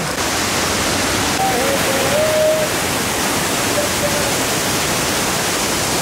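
Steady rush of a waterfall running in heavy monsoon flow, a constant noise of falling and churning water with no let-up.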